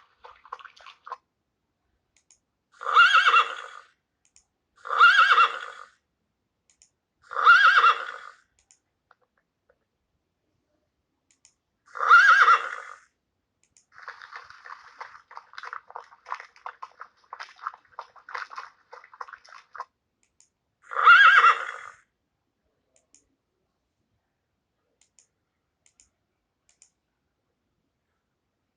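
Horse whinnying five times, each call about a second long, with a stretch of fast, ragged crackling between the fourth and fifth calls.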